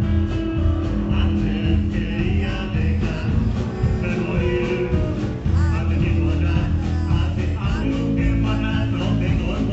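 Blues-rock band playing, with guitar over a steady bass and drum beat.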